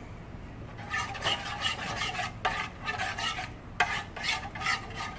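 Metal spoon stirring thick barbecue sauce and melting butter around a frying pan, scraping the pan about three times a second, with a couple of sharp clicks of the spoon against the metal.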